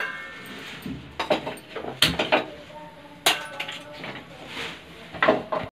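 Metal kitchen utensils clinking and knocking several times, some strikes ringing briefly like steel vessels.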